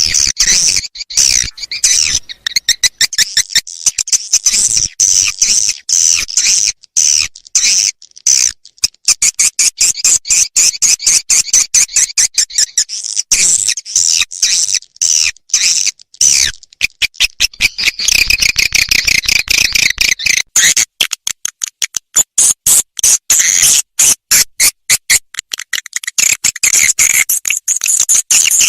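Swiftlet calls played as a flyway lure track for a swiftlet house: a dense, rapid, high-pitched chirping twitter, broken by a few short pauses.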